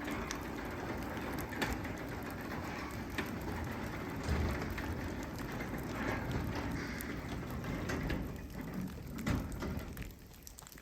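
Rain falling steadily, with a Craftsman 3/4 hp belt-drive garage door opener closing the door under it and a few knocks along the way. The sound drops away sharply near the end.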